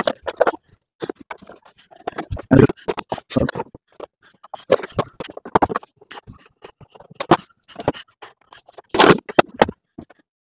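Irregular clicks, knocks and scrapes of hand work on a scooter's plastic body panels as they are being taken off, with a louder cluster of knocks about nine seconds in.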